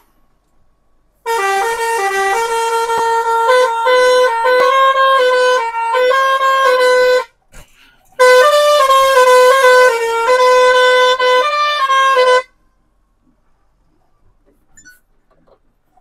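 Truck's musical horn playing a melody of held notes that step up and down, in two phrases of about six and four seconds with a brief gap between them.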